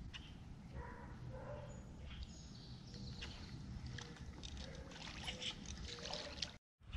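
Water lapping and trickling against a kayak's hull, with wind rumbling on the microphone. The sound cuts out for a moment near the end.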